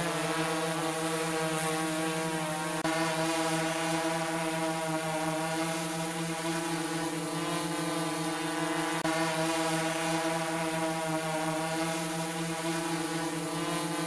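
Quadcopter drone flying, its motors and propellers giving a steady buzzing hum made of several fixed pitches stacked together. The hum dips briefly about three seconds in and again about nine seconds in.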